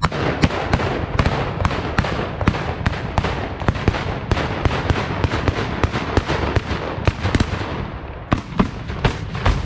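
Black-powder salute guns (Böller) fired by a line of shooters in rapid succession, about three sharp bangs a second, running into a continuous rolling crash. The firing thins briefly near the end, then picks up again.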